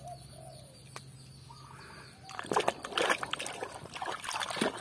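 Water sloshing and splashing in a basin of sudsy water as a muddy toy truck is dunked and swished around to wash it, starting about halfway through in a run of irregular splashes.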